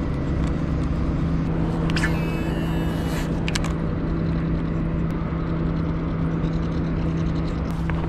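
Engine running steadily in the distance at one unchanging pitch, a constant low hum.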